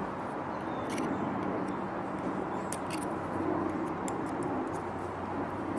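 Steady low mechanical hum and noise, with a few faint light clicks of small parts being handled about a second in and again near the middle.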